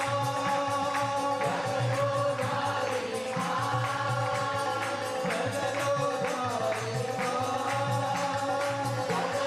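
A congregation singing a devotional song together, with hand clapping and percussion keeping a steady beat.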